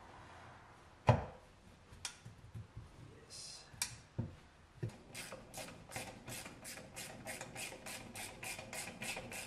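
Knocks and clunks of a fuel rail and injectors being fitted onto a BMW M20 aluminium intake manifold on a wooden bench, the loudest a sharp knock about a second in. From about five seconds in, a fast, even ticking at about four a second.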